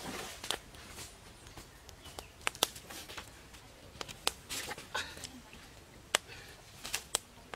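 A small wood campfire being tended: about half a dozen sharp clicks and pops a second or so apart, with soft rustling between them.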